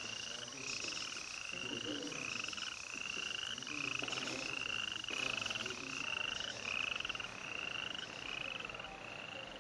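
Animal calls: short, buzzy notes repeating steadily about twice a second, each rising slightly in pitch.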